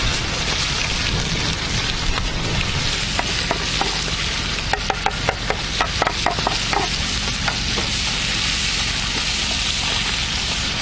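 Fish frying in hot oil: a steady sizzle, with a run of sharper pops and crackles in the middle.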